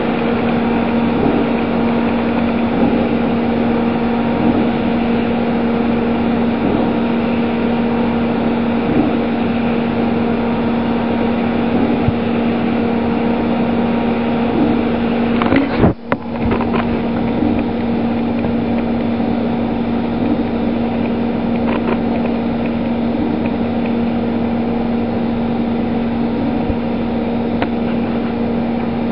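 CNC milling machine cutting an aluminium part under coolant mist spray: a steady machine hum with a constant tone over the hiss of the coolant, with a brief break about halfway through.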